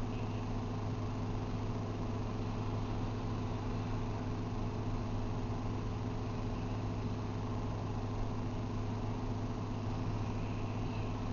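Steady low background hum of a running machine or appliance.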